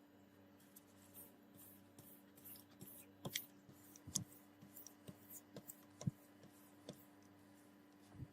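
Faint, irregular scrapes and small clicks of hand work on a sword being restored, with a few sharper taps around three to six seconds in, over a low steady hum.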